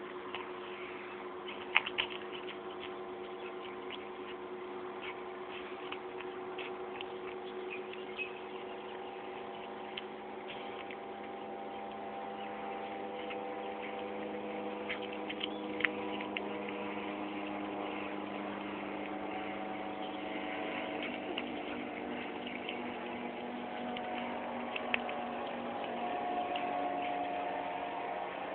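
Domestic cat chewing a field mouse: sporadic sharp crunching clicks over a steady hum of several tones that drift slowly in pitch.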